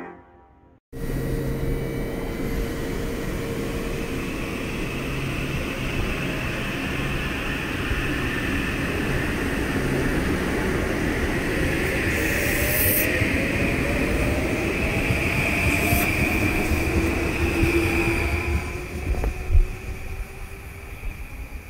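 M8 electric commuter train pulling out of the station, wheels rumbling on the rails with a faint motor whine that rises in pitch as it gathers speed. Two brief hissing bursts come partway through, and the sound fades as the train draws away near the end.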